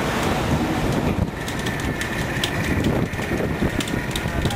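Fishing boat's engine running with a steady low rumble. A faint steady whine comes in about a second and a half in, along with scattered light ticks.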